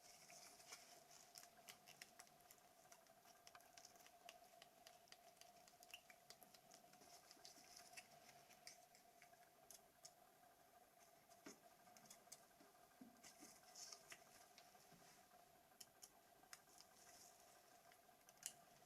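Near silence: faint, scattered small clicks and scratches of plastic phone parts being handled and fitted together, over a faint steady hum.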